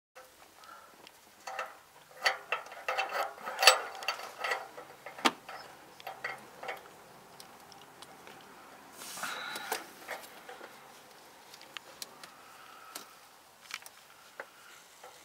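Scattered small metallic clicks and knocks as a new oxygen sensor is handled and threaded by hand into the exhaust pipe, densest in the first few seconds, with a brief rustle about nine seconds in.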